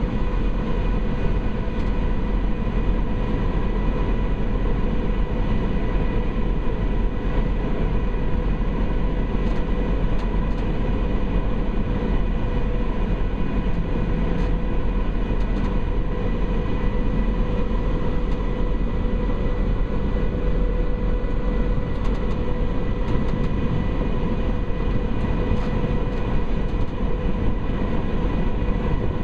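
Steady engine drone of the Condor Vitesse high-speed catamaran ferry under way, a constant hum of several steady tones over a dense rumble, with wind rushing over the microphone on the open deck.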